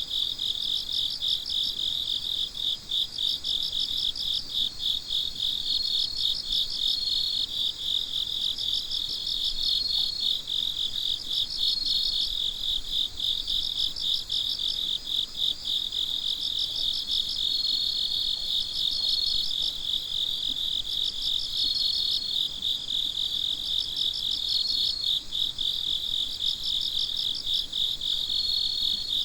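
Autumn insect chorus of crickets and Japanese bell crickets (suzumushi): dense, rapid high-pitched pulsed chirping throughout, with clear ringing notes of a second or two breaking in every few seconds.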